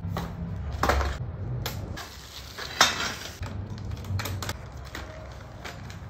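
Metal parts of a wheel chock clinking and knocking together as it is unwrapped and assembled by hand, with packaging rustling. The handling is irregular, with the sharpest knock just under three seconds in.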